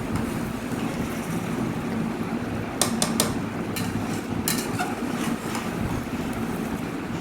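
A metal spoon or spatula knocking and scraping against a cooking pan while chicken curry is stirred, with a few sharp clicks about three seconds in and again a second or so later, over a steady low hum.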